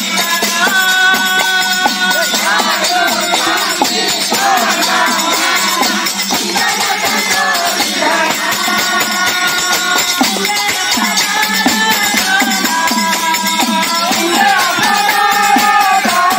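Alekha bhajan sung by a group of Mahima Dharma devotees, with long held and sliding sung notes over steady jingling hand percussion.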